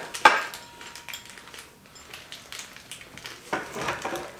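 Handling noises from assembling a metal motorcycle stand: a sharp clank just after the start, then faint clicks and rustles of small parts, and a louder rustle near the end.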